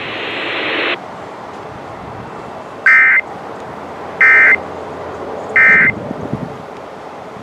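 Emergency Alert System end-of-message code: three short, loud, warbling data bursts about a second and a half apart, marking the end of a National Weather Service warning broadcast. They follow about a second of rising radio static that cuts off abruptly.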